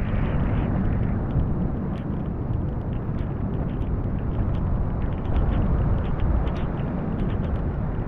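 Storm wind buffeting the GoPro's microphone in a steady low rumble, with many small ticks of heavy rain striking the camera.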